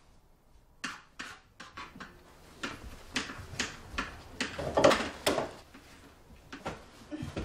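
Kitchen cupboard doors and drawers opened and shut, with a run of knocks and clatter as things are rummaged through; the loudest clatter comes about five seconds in.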